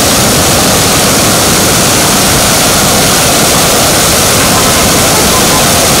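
Swollen, muddy floodwater of a forest stream rushing over rocks in whitewater rapids: a loud, steady rushing of water.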